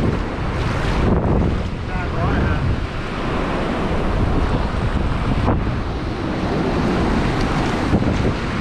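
Ocean surf washing in and breaking in the shallows, with wind buffeting the microphone.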